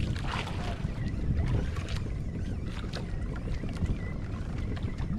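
Wind buffeting the microphone aboard a small outrigger boat at sea, a steady low rumble with water lapping against the hull and a few faint ticks.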